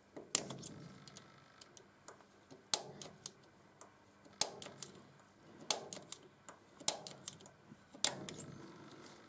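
Small automatic centre punch firing six times, each a sharp metallic snap, with fainter clicks in between, as it is pressed against a broken steel stud fragment stuck in the slot of a thread chaser to knock it loose.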